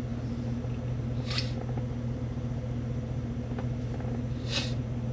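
Steady low hum inside a pickup truck's cab, with two short soft hisses, one about a second and a half in and one near the end.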